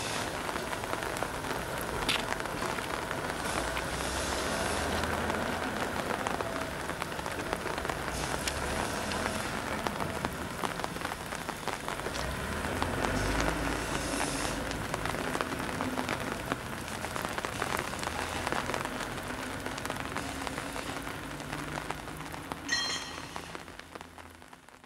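A BR 50 class 2-10-0 steam locomotive standing with steam up, giving off a steady hiss with a low rumble now and then. A brief high-pitched squeal comes near the end, and then the sound fades out.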